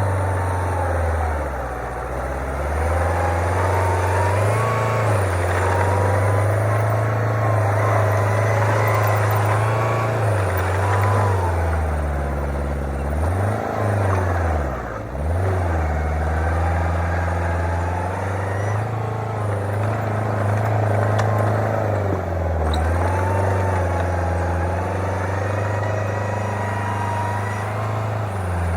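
Heavy diesel engine of construction machinery running continuously, its pitch rising and falling as the revs change. About halfway through, the revs drop sharply and then pick up again.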